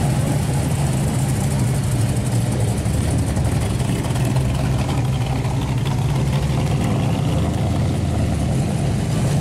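Muscle car engines idling with a steady low exhaust rumble as the cars roll slowly past at walking pace: a Dodge Challenger, followed near the end by a 1969 Camaro SS's V8.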